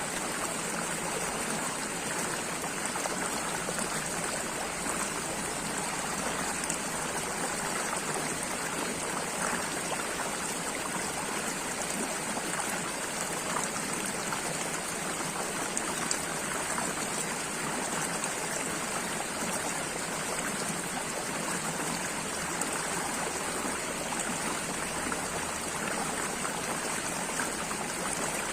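Running water flowing steadily, an even rushing noise with no breaks or changes.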